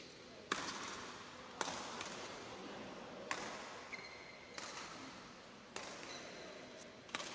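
Badminton rally: six sharp racket hits on the shuttlecock, a second or so apart, each with a short echo from the large hall, with a couple of brief high shoe squeaks on the court between them.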